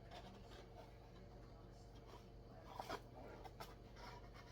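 Near silence with a few faint light clicks and scrapes, the clearest a little before three seconds in: a measuring spoon being handled while scooping baking soda.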